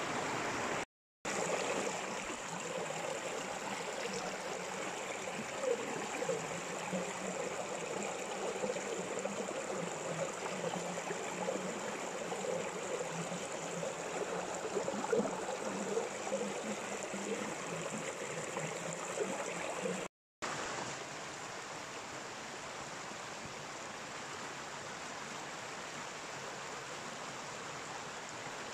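Shallow stream water running steadily. Two brief drop-outs break it, and after the second, about twenty seconds in, it is steadier and a little quieter.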